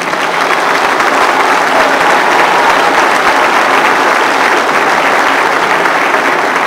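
Audience applauding steadily: dense, even clapping from a large crowd, holding at the same level throughout.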